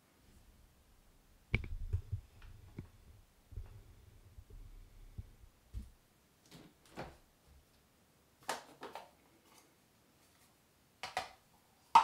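Soft handling sounds of hair being gathered and twisted into a bun: low muffled bumps in the first half, then several short rustles, the loudest at the very end.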